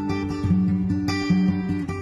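Background music: acoustic guitar plucked and strummed, its notes changing every half second or so.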